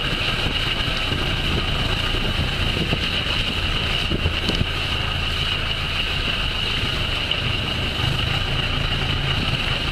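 Engine and road noise of a slowly moving vehicle, heard from inside the cab through an open window: a steady low rumble with a constant high-pitched hum over it.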